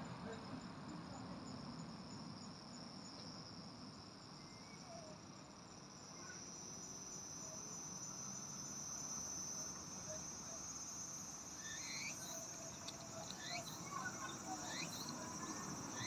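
Faint, steady, high-pitched insect trilling from the surrounding vegetation, with a few short chirps in the second half.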